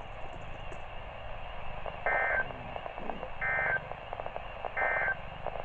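EAS end-of-message signal from NOAA Weather Radio: three short bursts of warbling SAME data tones, spaced about a second and a half apart, over a steady hiss of radio static. The three bursts mark the end of the alert message.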